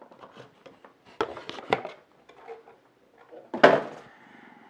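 Hard objects knocking on a desk as PC parts are handled: two light knocks a little over a second in, then a louder clunk with a short ring-out about three and a half seconds in.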